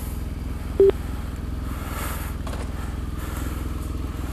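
BMW R1200 GS Adventure's flat-twin engine idling steadily at a standstill, with one short, loud beep a little under a second in.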